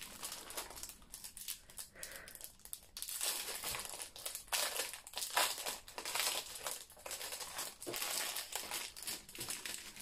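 Clear plastic packaging crinkling and rustling irregularly as a diamond painting notebook kit is unwrapped by hand, pulled out of its cellophane bag.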